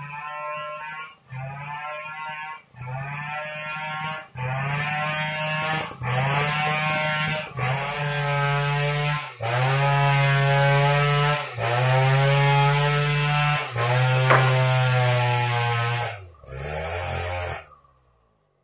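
Stihl 070 two-stroke chainsaw engine running hard in a series of stretches one to two and a half seconds long, each rising in pitch at its start, broken by abrupt gaps; the sound stops near the end.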